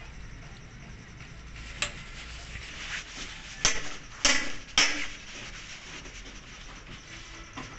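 A light click, then three loud, sharp knocks of hard objects in quick succession, about half a second apart, over a low background hum.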